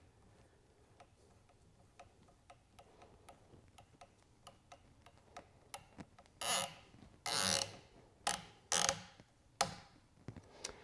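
M5 screw being tightened into a plastic bracket with a 3 mm hex driver. There is a run of faint ticks, then from about six seconds in several short, louder scraping squeaks as the screw is driven home.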